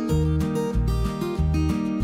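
Background music led by a strummed acoustic guitar, over a bass line of short repeated notes.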